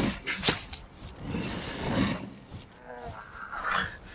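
Werewolf growling and snarling in a film fight, with a sharp hit about half a second in and a brief higher cry near the end.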